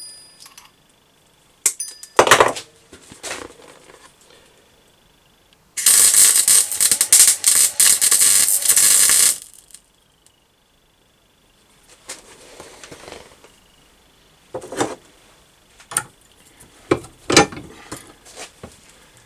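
MIG welder laying a weld on thin steel, a dense crackling burst of about three and a half seconds starting around six seconds in; the weld blew through the thin metal at the end. A few sharp metal clicks and knocks come before and after it.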